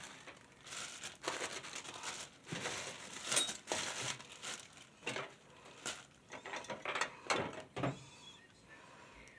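Makeup products being rummaged through and handled: irregular small clicks, knocks and rattles of containers, with some rustling.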